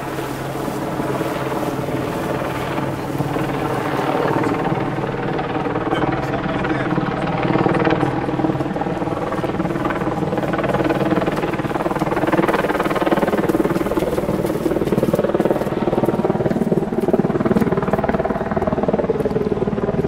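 A loud, steady engine drone with a slowly wavering pitch.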